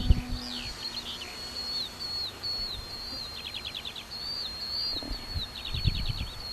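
Songbirds singing: repeated short, falling whistled notes and several quick trills, over a faint steady high-pitched tone.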